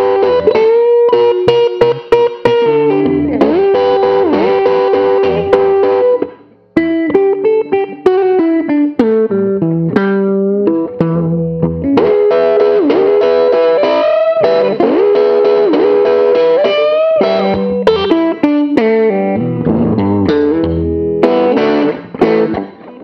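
Custom Gibson ES-330-style hollow-body electric guitar played solo through an amplifier: a lead line of single notes and double stops with many string bends, breaking off for a moment about six seconds in.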